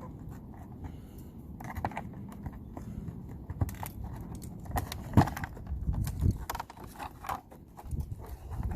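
Scattered clicks, knocks and scraping of a key-operated garage door switch being handled and tugged at its mounting hole, where it sits tight in the siding; one sharper knock comes about five seconds in.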